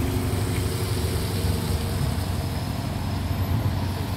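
Alexander Dennis Enviro400 double-decker bus pulling away, its diesel engine running with a steady low drone as it moves off.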